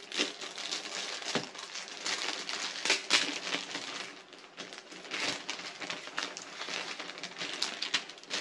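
A clear plastic packaging bag and paper sheets crinkling and rustling as they are unfolded and handled, in irregular bursts.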